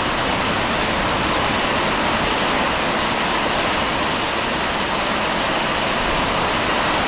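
Heavy rain pouring steadily onto a garden path and plants during a thunderstorm, an even, unbroken rush of rain noise.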